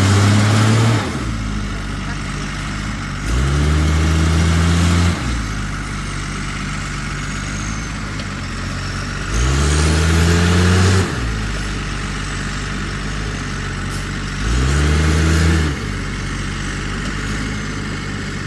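A Fleetwood Providence diesel-pusher motorhome's engine idling and being revved repeatedly, about every five to six seconds. Each rev rises in pitch, holds for a second or two, then falls back to idle, as the driver tries to power the stuck RV out of soft ground.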